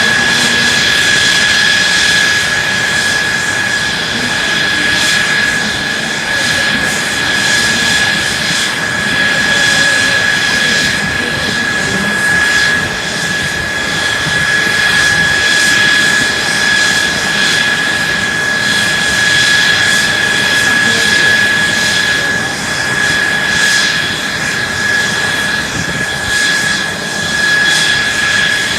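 Mitsubishi F-2 fighter's F110 turbofan engine running on the ground with a steady high-pitched whine over a constant rush of jet noise.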